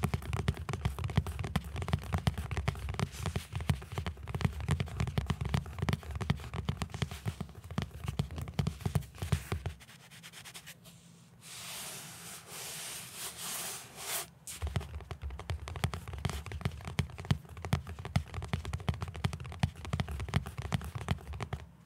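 Fingertips and nails tapping rapidly on a close-miked cloth-covered hardcover book. About ten seconds in, the taps give way for a few seconds to a softer, hissing scratch on the cover, then the quick tapping resumes.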